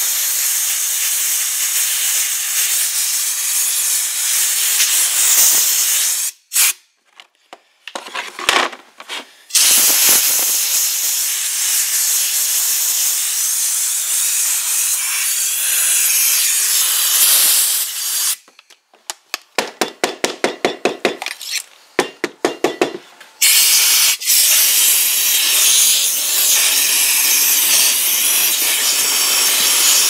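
Compressed-air blow gun hissing in long blasts through a dishwasher's lower spray arm, blowing clogged debris out of its jets. The blasts stop and start a few times, and about twenty seconds in the air comes in rapid sputtering pulses, about five or six a second, before going back to a steady hiss.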